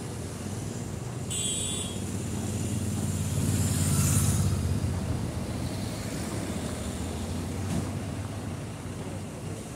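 Road traffic: a steady low engine hum from motor vehicles, swelling as one passes close by about four seconds in and then fading.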